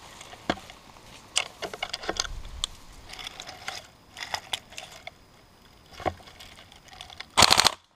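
Dry twigs and brush crackling and snapping in irregular bursts as someone pushes through dense undergrowth. Near the end there is a loud rattling burst lasting under half a second.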